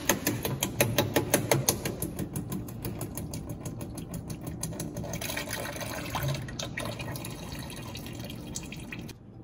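Old gearbox oil pouring in a thin stream from the gearbox drain hole of a BMW Z3 and splashing as it lands. It begins with an even glugging pulse of about four or five a second, which fades into a steady trickle. The sound drops off abruptly near the end.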